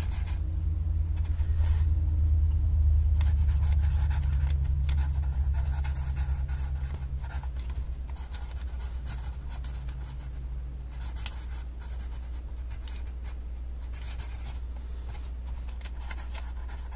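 Pencil scratching across brown paper in short, irregular strokes while cursive is written by hand. A low steady hum runs underneath, swelling over the first few seconds and then easing, and there is one sharp tick a little past the middle.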